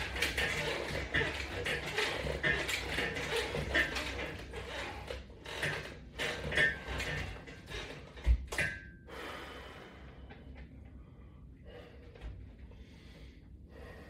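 Sounds of a resistance-band workout: a rhythmic run of short breaths and clinks from the band's metal attachment hardware, about two a second, growing quieter and sparser about ten seconds in.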